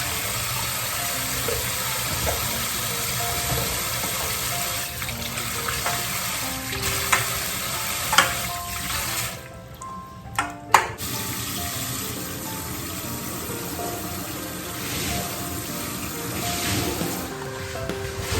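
Water running from a kitchen tap into a sink. It stops briefly just after the middle, with a few sharp knocks, then runs on.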